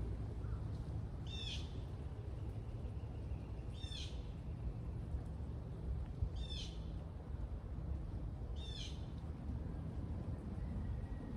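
A bird calling four times, about every two and a half seconds, each a short high call, over a steady low background rumble.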